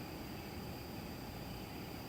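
Steady low background hiss with a thin, constant high-pitched tone running through it; no call is heard.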